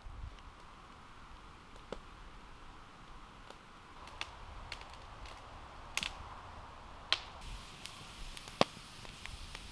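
Campfire crackling: irregular sharp pops and snaps of burning wood over a low hiss, the loudest pop near the end.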